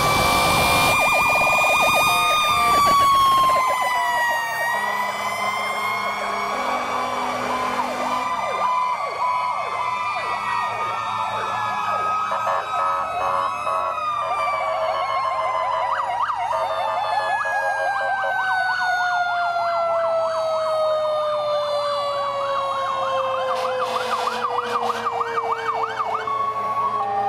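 Sirens of several passing fire trucks sounding at once: overlapping slow wails and fast yelps, with one siren's pitch sliding slowly down through the second half. Diesel engines run underneath.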